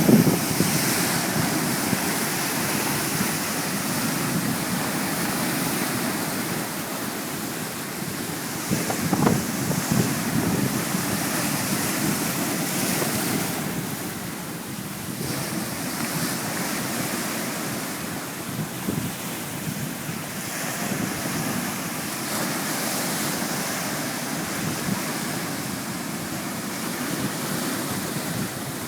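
Sea surf washing onto the shore in a continuous rushing noise that swells and eases, with a louder surge about nine seconds in. Wind buffets the microphone.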